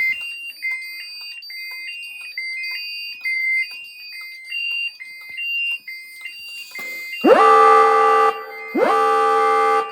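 Fire-alarm panel buzzer beeping in fire-alarm mode, short beeps alternating between two high pitches. About seven seconds in, the voice-evacuation unit's speaker sounds two loud, long alarm tones, each starting with a quick upward slide, the attention signal that comes before its spoken fire-alarm message.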